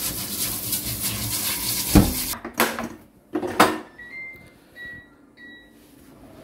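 Tap water runs onto rice as it is rubbed and washed by hand in a rice cooker's metal inner pot. The water stops about two and a half seconds in, and a few loud clunks follow as the pot goes into a Cuckoo induction rice cooker. Then the cooker's control panel gives three short beeps as its buttons are pressed.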